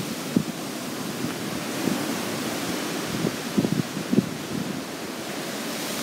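Typhoon wind rushing steadily and buffeting the phone's microphone, with a few short low thumps about midway.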